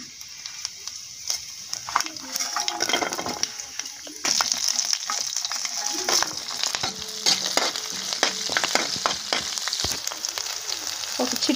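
Tempering spices (urad dal, mustard seeds, cumin) sizzling in hot oil in a metal kadai. About four seconds in, green chillies, dried red chillies and garlic cloves go in and the sizzle gets louder, with scattered clicks and scrapes as it is stirred.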